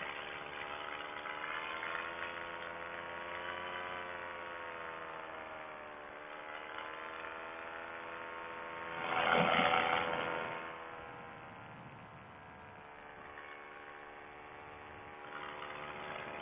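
Paramotor engine and propeller running steadily in flight, its pitch drifting slightly up and down. About nine seconds in, a louder rush of noise swells for a second or so and fades.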